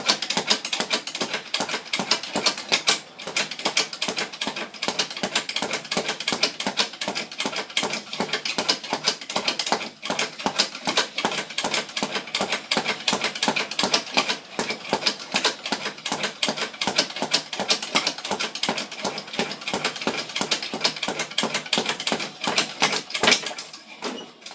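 Speed bag being punched, the bag drumming against its wooden rebound board in a fast, steady rhythm, then stopping near the end.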